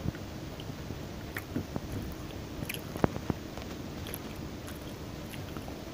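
Close-miked chewing and biting of food, with scattered soft mouth clicks and two sharper smacks about three seconds in.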